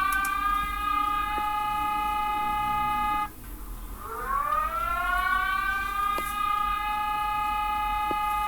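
Brazil's emergency alert alarm playing as a siren-like wail. It rises in pitch and then holds a steady note, breaks off about three seconds in, and starts again with the same rise a second later.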